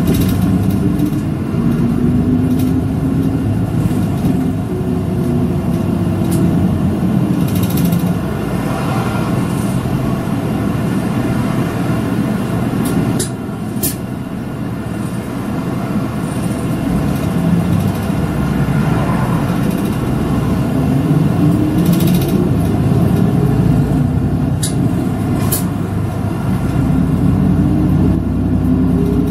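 City route bus driving along, heard from inside the bus. Its engine's pitch rises as it accelerates in the first few seconds and again over the last several seconds, over steady rumble and road noise, with a few brief clicks and knocks from the bus in the middle.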